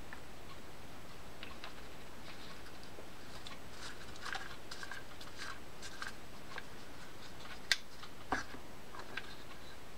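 Faint scattered clicks and small knocks of plastic and metal parts of a South Bend Condor spinning reel being handled and fitted together while the rotor is turned by hand, with two sharper clicks near the end.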